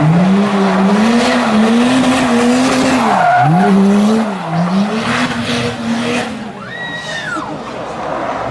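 Drift car's engine held at high revs with tyres skidding, the revs dropping briefly about three seconds in and again near four and a half seconds. The engine then fades, and a short high squeal rises and falls near the end.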